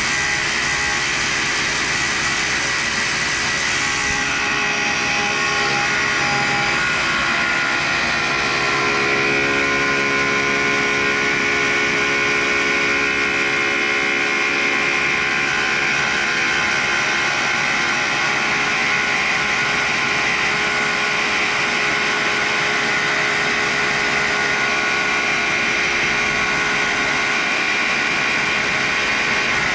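Diamond parting wheel on a vintage Cincinnati tool and cutter grinder, spinning at about 4,500 rpm, cutting through thick carbide, with a shop vacuum running alongside. It is a steady machine whine with a high tone. From about eight seconds in, further steady tones join it and it grows slightly louder.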